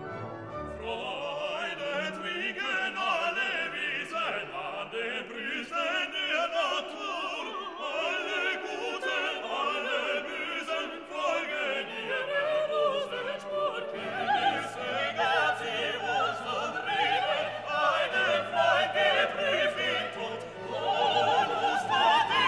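Background music: classical music with operatic singing and orchestra.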